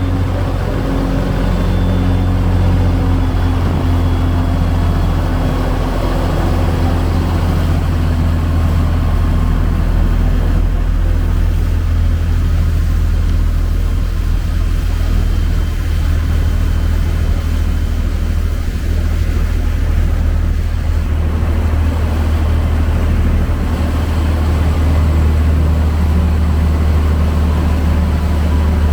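A passenger boat's engine running steadily under way, a constant deep hum with a wash of noise above it.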